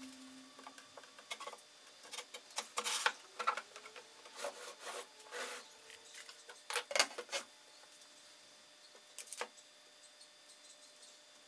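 Birch plywood panels and small tools handled on a wooden workbench: scattered light knocks, taps and scraping rubs, busiest over the first seven seconds or so, then two faint taps.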